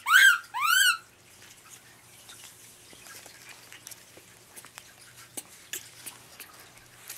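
Infant rhesus macaque giving two shrill calls in quick succession, each rising then falling in pitch. Faint scattered clicks and rustles follow.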